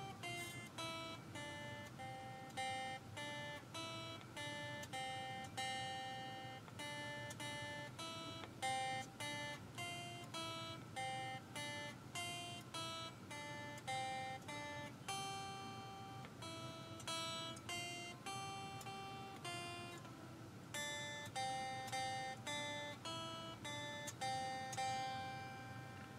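Fender Squier Stratocaster electric guitar picked one note at a time, playing a simple melody at a slow, even pace of about two notes a second.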